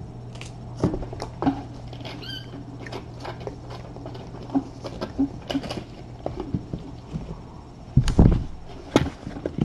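Kittens scampering and playing: light pattering and scattered clicks of small paws and toys, with a short high squeak about two seconds in and a heavier low thump near the end. A steady low hum lies under it all.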